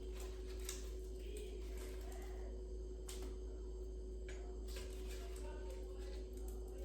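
Faint, scattered light clicks and taps as cooked spanakopita pieces are lifted out of an air fryer basket, over a steady low hum.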